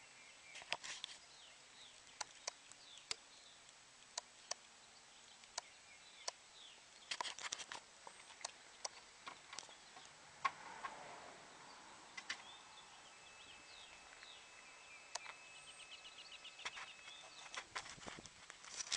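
Quiet scene with scattered sharp clicks and taps, with faint bird chirps in the background and a faint steady tone for a few seconds past the middle.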